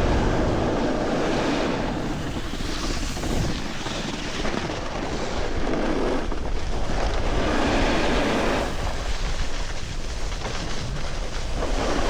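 Wind rushing over the microphone and snow scraping under a snowboard while riding downhill, the scraping swelling and easing several times.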